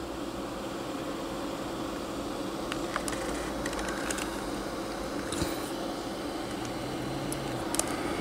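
Steady mechanical room hum with a few low tones under it, broken by a few faint short clicks.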